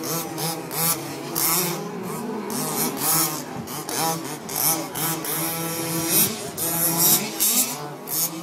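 Several 1/5-scale RC Baja race cars with small gas two-stroke engines racing, their engines revving up and down over one another in quick, repeated throttle bursts.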